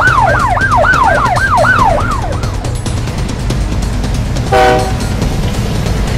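Siren in fast yelp mode, with rapid sweeps about four a second, fading out after about two seconds. About four and a half seconds in comes a short blast of a train horn, all over a steady low rumble.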